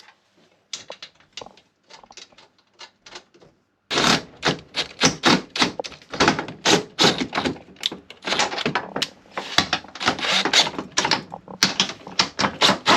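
Ratchet wrench clicking rapidly as 3/8 bolts are run into threaded rivet nuts. The clicks are faint and sparse at first, then loud and quick, several a second, from about four seconds in.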